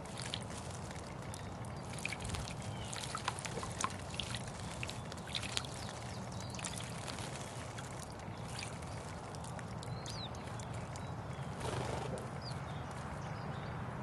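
House sparrows splashing in a stone birdbath: many short, sharp flicks and splashes of water as they bathe, with a couple of brief chirps in the second half. A steady low hum runs underneath.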